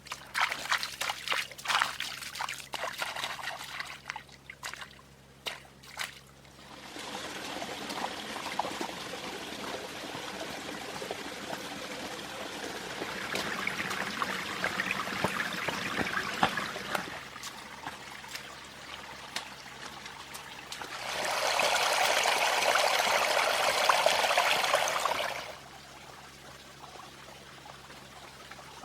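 Water trickling and pouring, with a louder, steady pour for about four seconds near the end that stops abruptly. A quick run of clicks or knocks comes first, in the opening few seconds.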